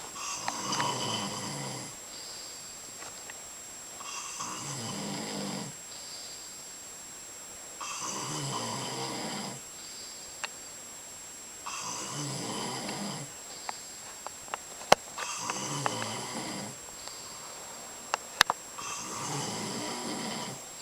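A person snoring: six long snores, one about every four seconds. A few sharp clicks fall between the later snores, and the loudest of them stand out above the snores.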